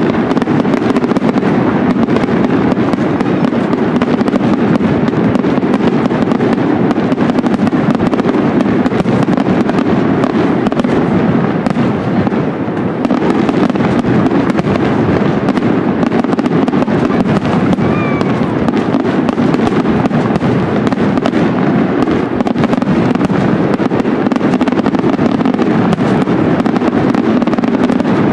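Aerial fireworks display: a dense, unbroken barrage of overlapping shell bursts and crackle, with a brief lull about twelve seconds in.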